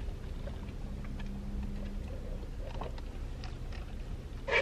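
Quiet car cabin with a low steady rumble and a few faint small clicks, as two people sip bubble tea through straws; a brief louder sound comes right at the end.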